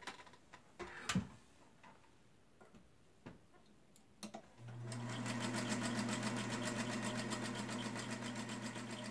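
Singer Featherweight sewing machine: a few light clicks as the fabric is set under the foot, then about halfway through its small electric motor starts and runs steadily under the fast, even clatter of the needle stitching, the needle correctly set with its flat side to the left.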